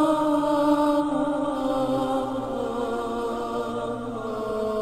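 Sustained vocal chanting, like a mantra, on long held notes that slide slowly in pitch.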